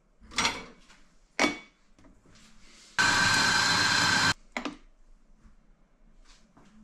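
Electric coffee grinder's motor running for about a second and a half with a steady whine, grinding coffee straight into an espresso portafilter, then cutting off suddenly. Before it come two sharp clacks of the portafilter being handled, and a single knock follows.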